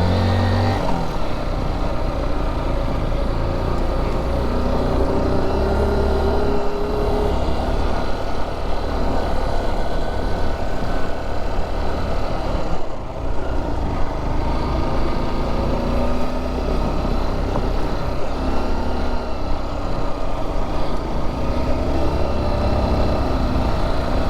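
Honda XR dirt-bike engine running under way, its revs rising and falling, with a brief dip about halfway through.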